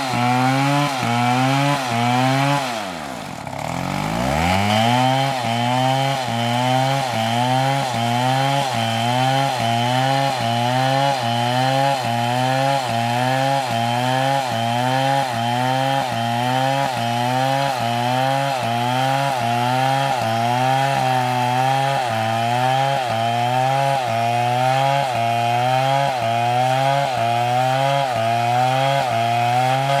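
Large STIHL chainsaw running and cutting into a palm log, its engine speed rising and falling about once a second as the chain works through the wood. About three seconds in the engine pitch drops steeply and briefly bogs down, then picks back up.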